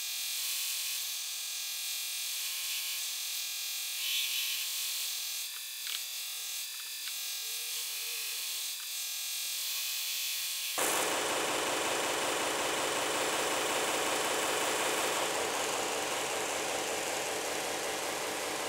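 A 2x72 belt grinder running while the steel blade of a chef's knife is ground lengthwise against the abrasive belt on the platen, a steady rubbing hiss. About eleven seconds in the sound turns fuller and slightly louder, with the grinder's motor and belt running.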